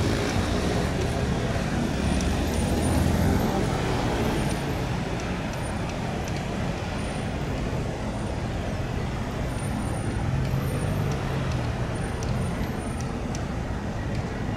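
Dense city traffic in a jam: car and van engines running as vehicles creep forward, a steady low rumble with engine swells twice. No siren sounds.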